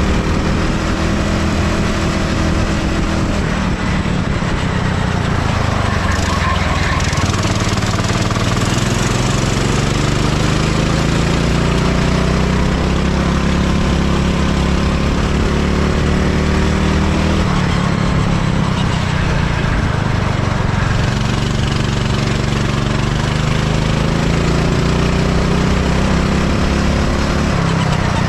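Go-kart engine under hard driving, heard onboard. Its note drops and climbs again several times as the kart slows for corners and accelerates out, with long stretches held high on the straights.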